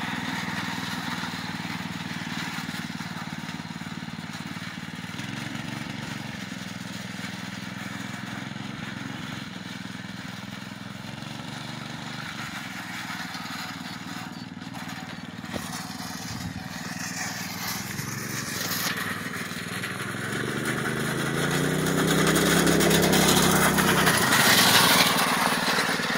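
Off-road go-kart's small engine running as the kart drives over dirt, fainter while it is farther off. Near the end it grows louder and its pitch rises as the kart speeds up and passes close by.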